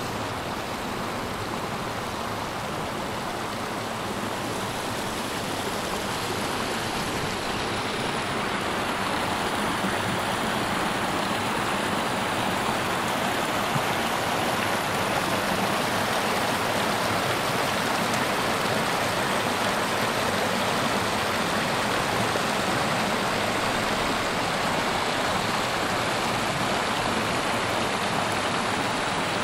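Shallow rocky creek running high with snowmelt, water rushing over stones and riffles in a steady, even wash of sound that grows a little louder several seconds in.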